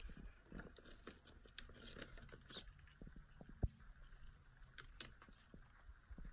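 RC rock crawler creeping over rocks and leaf litter: faint scattered ticks and crackles over a low rumble, with one sharp click about three and a half seconds in.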